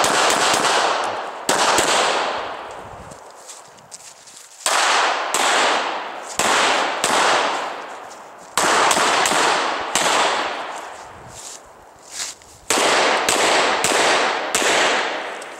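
Semi-automatic pistol fired in several quick strings of shots, roughly two a second, with gaps of a second or two between strings. Each shot has a long echo trailing off behind it.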